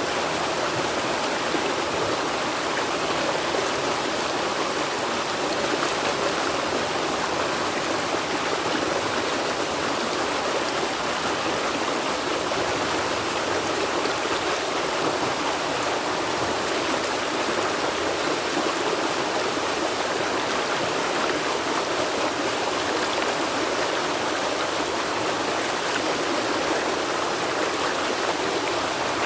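River water flowing steadily over rocks, an even rushing sound with no breaks.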